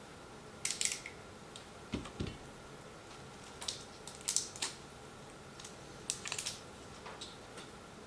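Batteries being unpacked from their plastic packaging and a plastic remote control being handled: short bursts of plastic clicks and crinkles, about six bunches at irregular intervals.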